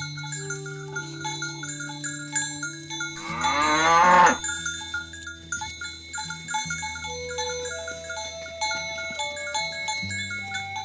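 A cow lets out one loud moo, rising in pitch and lasting about a second, about three seconds in. Background music with repeated bell-like notes plays underneath.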